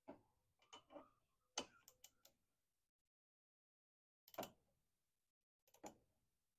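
Faint metallic clicks and taps of a hand tool working on a motorcycle's lower exhaust clamp: a quick cluster of clicks in the first couple of seconds, then a single click in the middle and another near the end.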